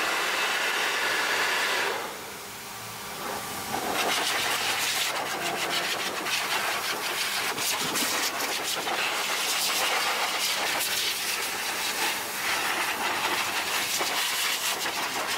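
Pet-grooming blow dryers running, a handheld hair dryer together with a hose-fed force dryer, giving a steady rushing of air. It drops off briefly about two seconds in, then comes back at full strength.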